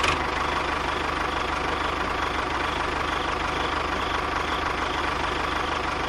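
Tractor engine idling steadily with a rapid, even chugging.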